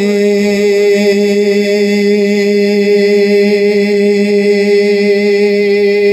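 A man's singing voice holding one long, steady note of a devotional song, with a slight waver in the pitch.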